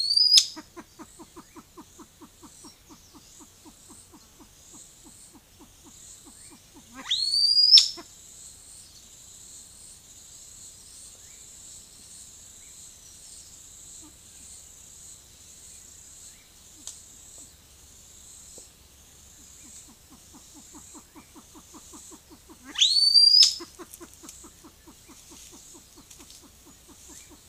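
Male silver pheasant calling: three loud, sharply rising whistled calls, one near the start, one about a quarter of the way in and one near the end. Between them come long runs of rapid low clucks at about five a second.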